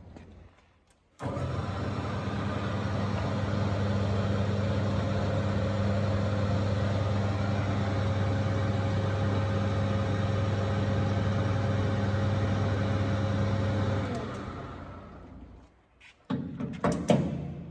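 HAFCO Metal Master AL-960B metal lathe switched on about a second in, its motor and spindle running steadily at speed with a constant hum. It is switched off a little before the end and spins down over about two seconds, followed by a few knocks as the chuck is handled.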